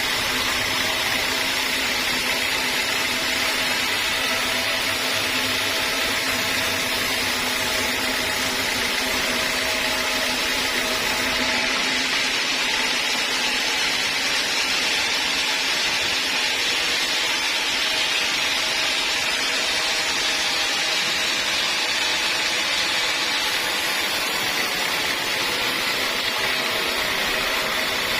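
Sawmill machinery running steadily: a continuous, even mechanical noise with a few faint steady tones and no pauses or changes.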